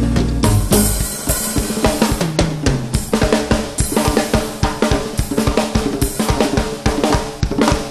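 Live band percussion: a drum kit with bass drum, snare and cymbals, joined by a hand drum beaten with the hands, playing a fast, dense rhythm. A low held note sounds under the drums for about the first second.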